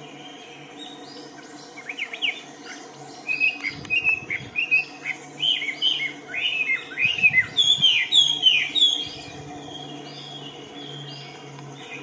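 Birds chirping: a run of quick, mostly falling chirps that starts about two seconds in, grows busiest and loudest in the middle, and dies down near the end, over a steady low hum.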